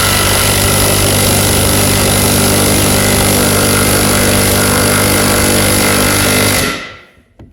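Milwaukee 2861 mid-torque impact wrench hammering steadily as it drives a lag bolt with no pilot hole drilled, stopping suddenly near the end.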